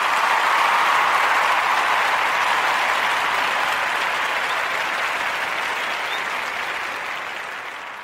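Audience applauding at the end of a live song recording, the applause slowly fading out.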